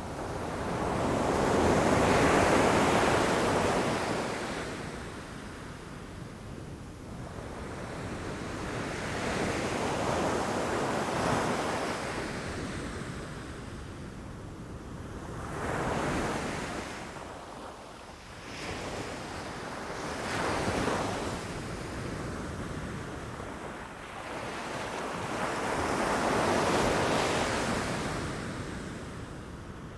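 Ocean waves breaking against rocks: the surf swells and falls away in about five slow surges, each a rushing wash of water.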